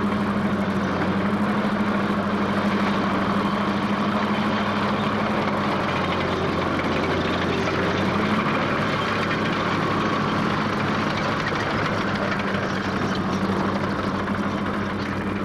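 Heavy bulldozer engine running at a steady, even pitch, cutting off abruptly at the end.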